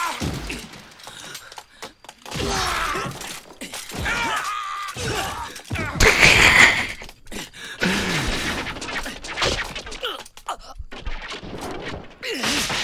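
Sword-fight sound effects from an anime soundtrack: blade swishes, crashes and impacts mixed with men's short cries. The loudest crash comes about six seconds in.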